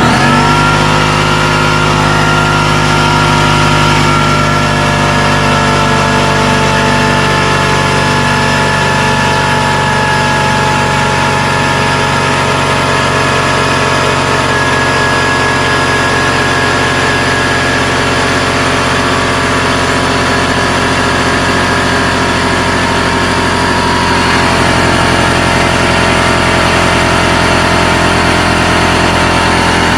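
Ridgid 6-gallon pancake air compressor starting up abruptly and running steadily, its motor and pump filling the empty tank. A loud, even mechanical drone.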